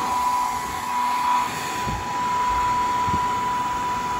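Handheld hair dryer running on its hot setting, a steady rush of blown air with a steady high motor whine.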